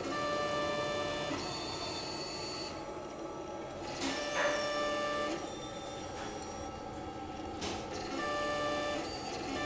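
Stepper motor whining in short runs of one to two seconds, a steady pitched tone that starts and stops several times over a low hiss: the robotic mechanism shifting the magnets that shape the magnetic-fluid eye.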